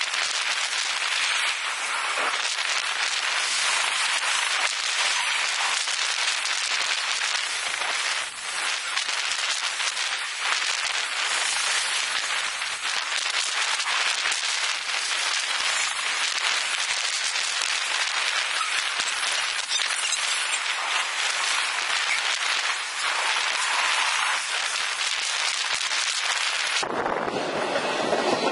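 Intermodal freight train of trailer and double-stack container cars passing close by: a steady crackling clatter and hiss of steel wheels on the rails. Near the end, a low rush of wind on the microphone comes in.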